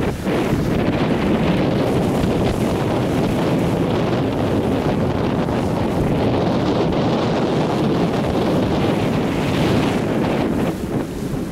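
Steady, loud wind noise on the microphone, over the wash of a slightly choppy sea around a moving boat.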